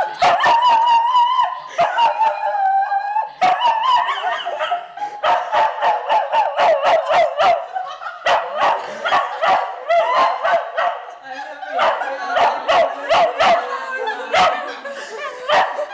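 Dog crying: a long wavering howl for the first few seconds, then a quick run of short yips and whining barks that rise and fall in pitch.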